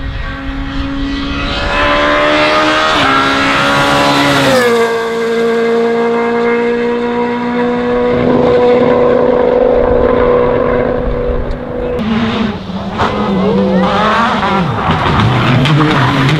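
Rally car engine at full throttle, its pitch rising for about four seconds, dropping sharply, then holding a steady high note. About twelve seconds in the note breaks off and the revs swing quickly up and down.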